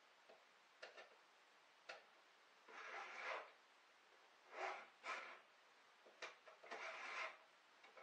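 Hand file scraping across chainsaw chain cutters in four slow strokes between about 3 and 7 seconds in, with a few small clicks before them as the file is set against the teeth.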